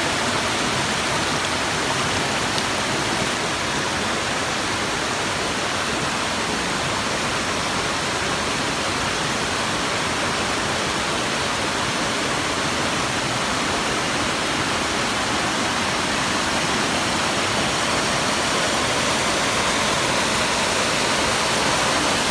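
Rushing water, a steady even hiss that does not change.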